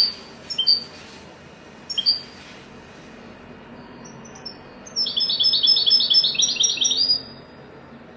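Goldfinch calling and singing: three short, sharp chirps in the first two seconds, then a quick twittering run of repeated high notes a few seconds in, lasting about two seconds.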